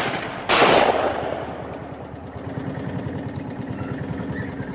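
Shotgun fired at a flushed pheasant: a single loud shot about half a second in, with the report of a shot just before still dying away at the start. Its echo fades over about a second, and a vehicle engine keeps idling steadily underneath.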